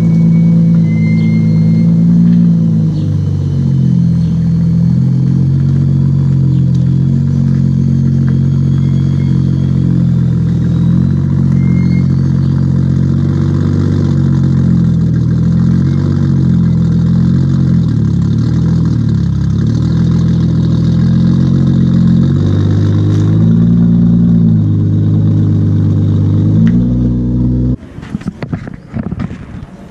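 Electronic dance music with heavy synth bass chords that change every second or so. It cuts off abruptly near the end.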